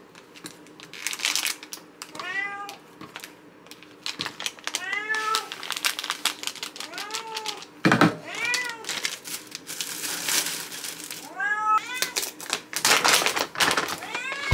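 Cats meowing again and again, about five meows that each rise and fall in pitch, over sharp clicks of scissors snipping a stick of pet food and the crinkle of packaging. There is one heavier thump about eight seconds in.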